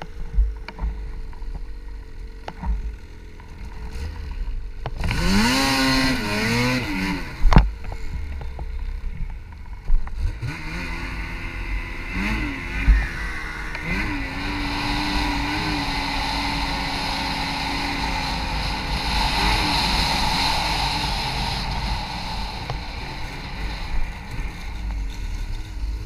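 BRP Ski-Doo Backcountry 850 snowmobile's two-stroke engine riding along a trail: it revs up with rising pitch about five seconds in, gives a sharp thump a couple of seconds later, then runs steadily at speed with a few short throttle blips.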